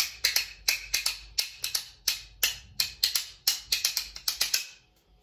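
Two flat wooden spoons struck together like claves, clacking out a quick rhythm of about twenty sharp wooden clicks that stops about four and a half seconds in.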